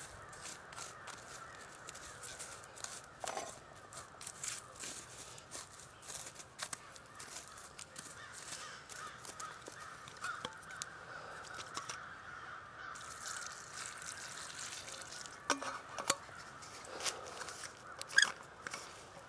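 A stick stirring and scraping through wet, charred coals in a stone fire ring, with many small crunching clicks and crackles, and a few sharper knocks near the end. The fire has been doused with water and the coals are being broken up to put it out.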